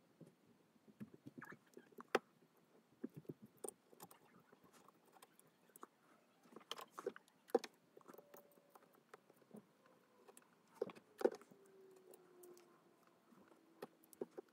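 Faint scattered clicks, taps and small scrapes of a plastic model-locomotive motor truck being turned in the hands and wiped out with a cotton swab.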